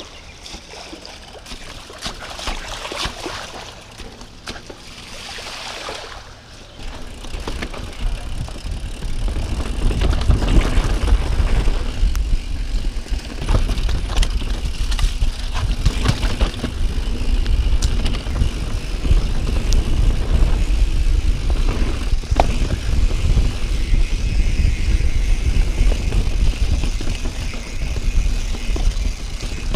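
Santa Cruz Bronson C mountain bike ridden along dirt singletrack: tyres rumbling and crunching over the trail with frequent knocks and rattles from the bike. The riding noise is lighter at first and turns into a loud, steady low rumble about seven seconds in as the ride picks up speed.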